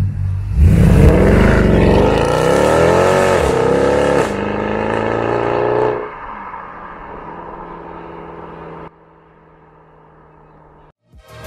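Mercedes C63 AMG's V8 accelerating hard, its pitch climbing and dropping through gear changes. It then settles to a steadier, quieter note as the car moves off, and drops abruptly to faint about nine seconds in.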